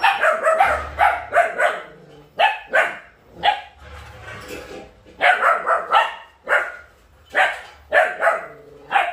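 Belgian Malinois puppies, about 80 days old, barking over and over: short sharp barks in quick runs and pairs, with a lull around three to five seconds in.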